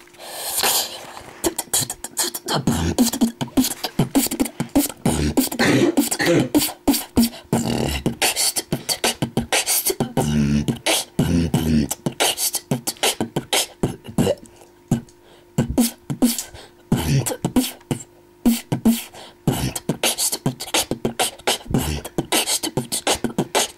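A boy beatboxing a basic beat: a fast, steady run of mouth-made clicks and pops, with low bass sounds at times.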